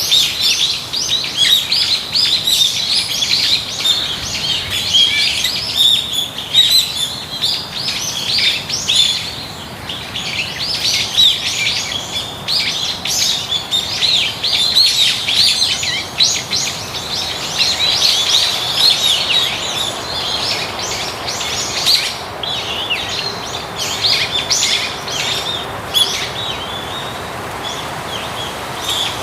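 Many small birds chirping at once: a dense, continuous chorus of short, high chirps overlapping one another.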